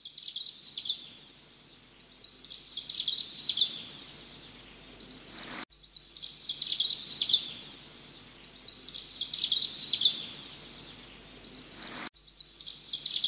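Birds chirping and twittering in a busy, high-pitched chorus. It is a short birdsong ambience that repeats about every six seconds and cuts off abruptly at each repeat.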